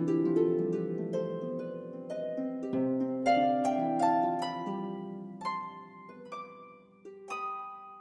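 Background music on a plucked string instrument: a slow melody of plucked notes, each ringing and fading, that grows sparser and dies away near the end.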